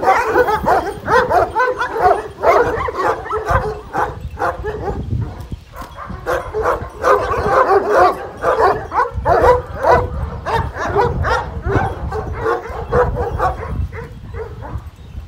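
A yard full of Kangal shepherd dogs barking together, many barks overlapping without a break.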